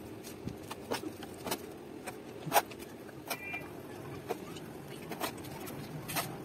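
Small metal trowel working wet cement mortar into a plastic mold around a PVC pipe: irregular scrapes and sharp taps, the loudest about two and a half seconds in.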